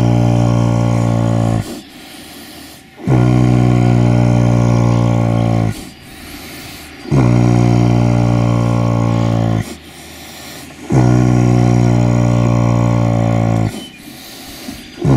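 Shire foal snoring in its sleep: a long, low snore about every four seconds, each falling slightly in pitch as it ends, with a quieter breath between snores.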